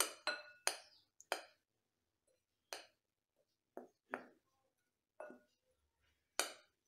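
Light, irregular clinks against a glass mixing bowl, about nine in all, as dry gram flour and spices are stirred in it. Some clinks ring briefly.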